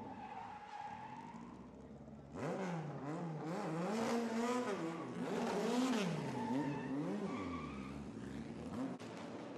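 Historic open-wheel racing car spinning: the tyres squeal and skid while the engine revs up and down in rapid swings. About two seconds in it suddenly gets much louder, after a quieter steady engine note, then settles down near the end.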